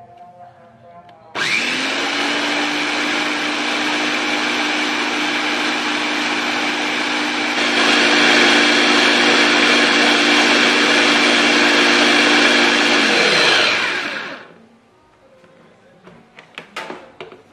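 Mitochiba electric food chopper with three blades running, blending pumpkin, flour and coconut milk into a smooth batter. The motor starts with a rising whine about a second in, runs steadily, grows louder about halfway, then winds down with a falling pitch; a few light clicks follow as the motor head is lifted off the bowl.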